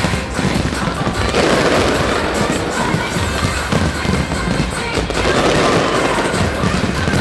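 Fireworks going off in a continuous barrage of low booms and dense crackling, with the display's music mixed in underneath.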